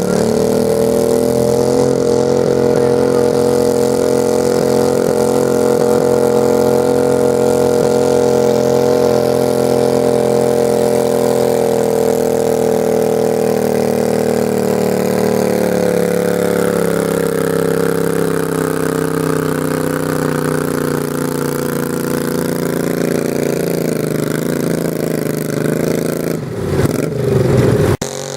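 Garden tractor engine running hard under load, pulling the sled. Its pitch holds steady, then slowly sags over several seconds as it bogs down. Near the end there is a brief louder, wavering surge, and the sound cuts off suddenly.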